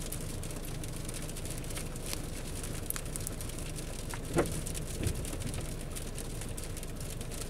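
Pontiac G6 engine idling steadily at about 770 rpm during a crankshaft position sensor variation relearn, with a short squeak about four seconds in.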